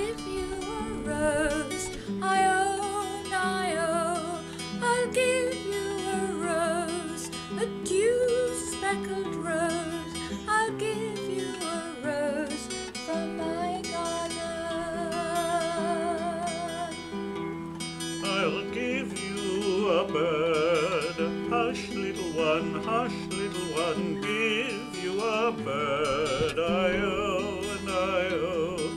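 A woman and a man singing a folk lullaby with vibrato to acoustic guitar accompaniment.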